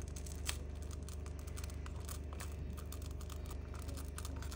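Dense small clicks and light scraping as fingers pry a thin metal camera plate off the lenses of a phone's glass back cover, with a steady low hum underneath.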